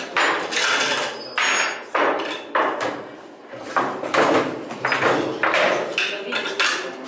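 AK-74 rifle's steel parts clacking and knocking together as it is stripped and reassembled by hand: a quick, uneven run of sharp metallic clacks, with a short lull about halfway through.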